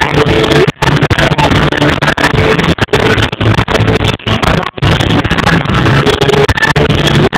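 Live pop concert music over a venue PA, recorded loud and rough on a phone inside the crowd, with brief dropouts in the sound.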